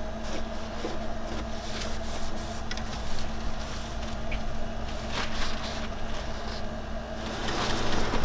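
A cloth or paper towel wiping and rubbing over a car's bare metal floor pan, in short hissing strokes, over a steady low hum.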